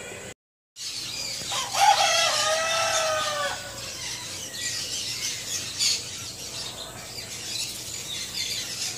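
A rooster crowing once, one drawn-out call of about two seconds, followed by faint chirping of small birds.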